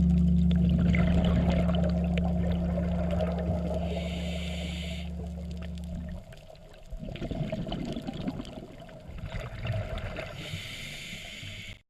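A low sustained music chord fades slowly and stops about six seconds in. Underwater ambience follows: bubbling and gurgling, with stretches of hiss typical of a scuba diver's regulator breathing.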